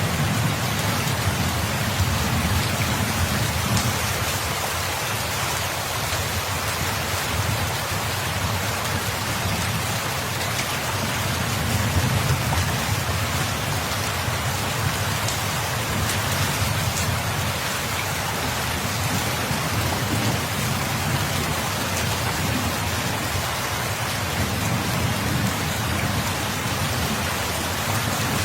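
Steady heavy rain falling on a surface, a constant dense hiss, with a low rumble underneath that swells and fades over several seconds, like distant thunder.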